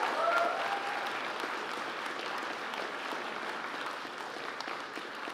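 Audience applauding, a steady patter of many hands clapping, with a brief cheer near the start.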